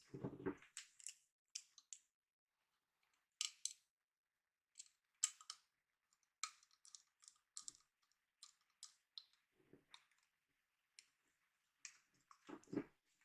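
Faint, scattered light clicks and ticks of small hardware being handled as a mounting bracket is fitted to the pump of a Cooler Master MasterLiquid ML120L all-in-one liquid cooler, with a soft knock at the start and again near the end.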